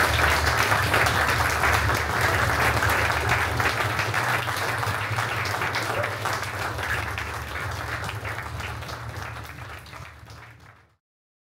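Audience applauding, dense clapping over a steady low hum, fading away over the last few seconds until it stops.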